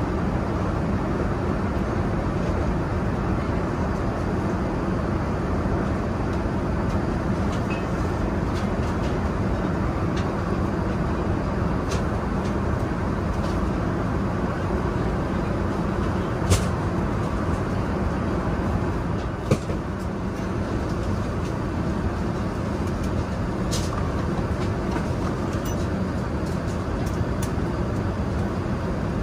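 Steady cabin noise of an Airbus A380 in cruise: an even rush of airflow and engine noise, with a few sharp clicks about twelve, sixteen, twenty and twenty-four seconds in.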